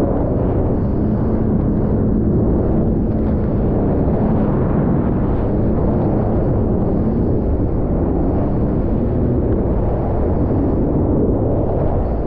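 Sea-Doo GTI personal watercraft running at speed through choppy water: steady engine drone under the rush of water and spray against the hull, with wind buffeting the camera microphone.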